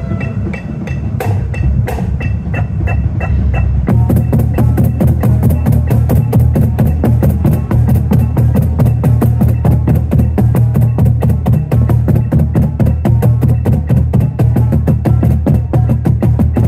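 A steady pitched click, about three a second, then about four seconds in a line of five Yamaha marching bass drums comes in with mallets, playing a fast, dense paradiddle exercise over it.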